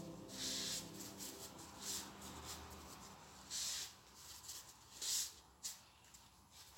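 Brush strokes swishing across wet watercolour paper, about five short strokes a second or so apart.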